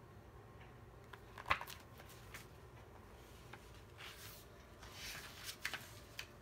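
Pages of a picture book being handled and turned: soft paper rustling twice in the second half, with a few light taps and one sharp tap about a second and a half in.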